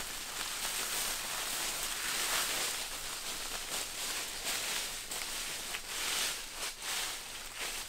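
Dry fallen leaves rustling and crackling as they are scooped up and scattered by hand, with footsteps shuffling through the leaf litter.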